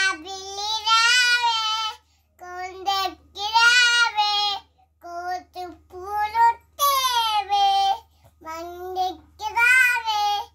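A two-year-old child singing a Telugu nursery rhyme in a high voice, in short sung phrases with brief breaths between them. A faint low hum runs underneath.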